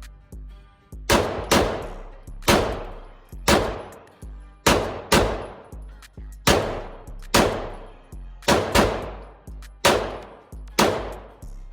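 Glock pistol in an MCK micro conversion kit firing about a dozen single shots at an uneven pace, roughly one a second, each shot trailing off in a long echo. Background music with a low bass line plays underneath.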